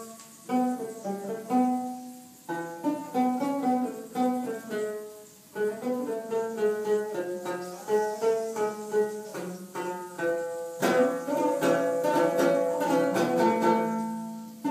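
Instrumental music on plucked strings: a quick melody of short plucked notes over held chord tones.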